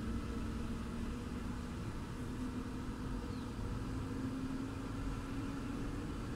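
Heavy diesel truck engine running steadily: a low rumble with a steady hum whose pitch rises a little about two seconds in.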